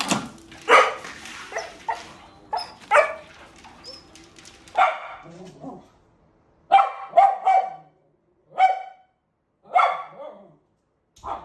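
A dog barking repeatedly: short, sharp barks, some single and one quick run of four, with pauses between.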